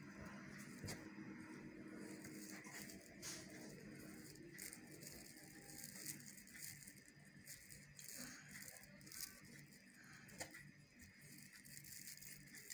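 Faint rustling and crinkling of stiff crinoline mesh as hands gather and shape it, with scattered light crackles.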